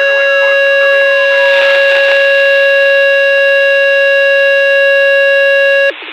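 Fire dispatch alert tone over a scanner radio: one loud, steady electronic tone held for about six seconds that cuts off suddenly near the end. It signals a fire department dispatch. A fainter falling, wavering tone runs beneath it in the first couple of seconds.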